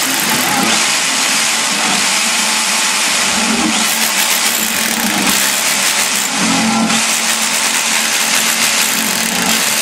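Electric rotary hammer drilling into a wall, running continuously at full speed.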